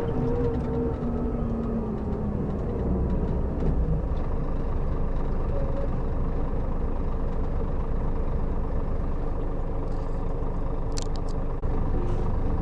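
Scania K400B coach's diesel engine running under way with a steady drone of engine and road noise; its note eases down slightly during the first couple of seconds, then holds steady. A few light clicks and a brief dip in the sound come near the end.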